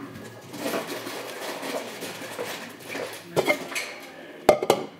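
Kitchen items being handled on a counter: rustling and light clatter, then two sharp knocks about four and a half seconds in.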